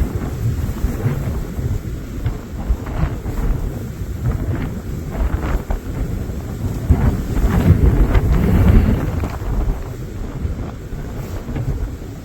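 Gusting wind buffeting the microphone: a loud low rumble that rises and falls, strongest about two-thirds of the way through.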